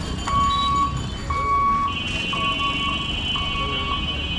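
Level-crossing warning buzzer sounding a single high beep, on for about half a second and off briefly, roughly once a second. About two seconds in, a steady, higher cluster of tones joins it over a low rumble.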